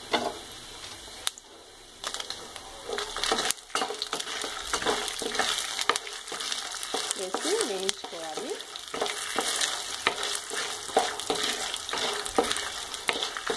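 Peanuts, lentils, coriander seeds and dried red chillies sizzling in hot oil in a pan, stirred with a wooden spoon that scrapes and knocks against the pan again and again.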